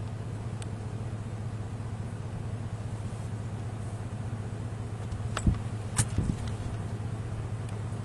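Steady low hum of an engine running, with a few sharp clicks about five and six seconds in.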